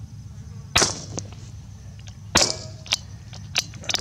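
Marlin XT-22 bolt-action .22LR rifle firing two sharp shots about a second and a half apart, each followed by fainter metallic clicks.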